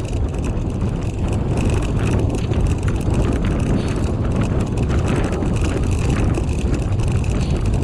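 Steady rolling noise of a four-dog dryland rig's wheels running over a dirt trail at speed, mixed with wind on the microphone.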